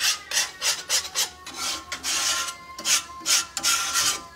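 A utensil scraping and stirring a thick oil-and-flour roux in a cast-iron skillet, in quick repeated strokes about two or three a second, as the roux is browned.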